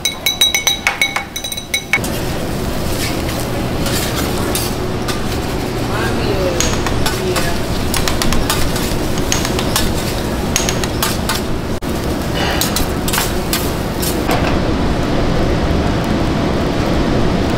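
Metal spatulas clinking with a ringing tone on a steel teppanyaki griddle for the first two seconds. Then rice sizzles on the hot griddle in a steady hiss, under many quick spatula taps and scrapes as the fried rice is chopped and stirred.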